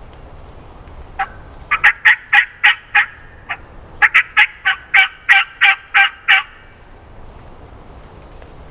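Hand-operated turkey call yelping, the hunter's call to draw a gobbler into answering: two runs of sharp, evenly spaced yelps, the second run longer.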